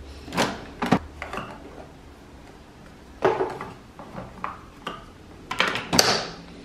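Plastic clicks and clacks of a single-serve pod coffee maker being handled: the lid lifted, a K-Cup pod set into the holder and the lid pressed shut, with the loudest snap about six seconds in.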